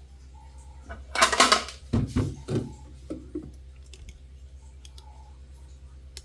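Drink bottles and containers clattering and knocking against each other and the refrigerator shelf as they are put in: a rattle about a second in, a few dull knocks right after, then a couple of lighter taps.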